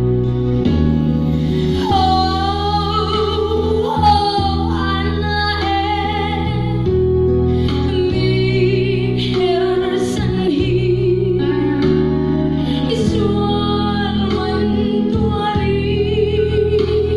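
A woman singing a slow song into a handheld microphone, her held notes wavering with vibrato, over sustained accompaniment chords that change every second or two.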